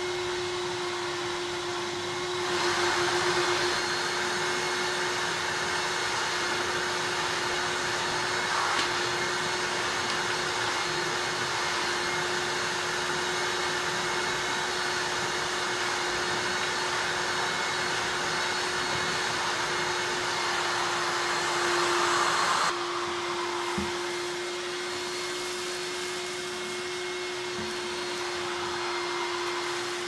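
1988 Panasonic MC-E62 cylinder vacuum cleaner running, a steady motor whine under the rush of air. The rushing grows louder a couple of seconds in and drops back about twenty-three seconds in.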